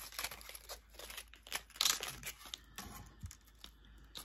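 Small clear plastic zip bag crinkling and rustling in the hands, in short irregular bursts.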